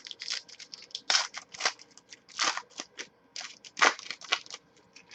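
Trading cards being handled and slid against one another: an irregular run of short swishes and clicks, loudest about a second in and just before four seconds in.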